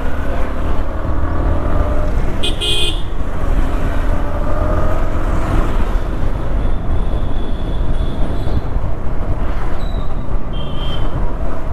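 City road traffic heard from a moving motorcycle: a steady low rumble of wind and road noise, with a short high-pitched horn toot about two and a half seconds in and fainter toots later, one near the end.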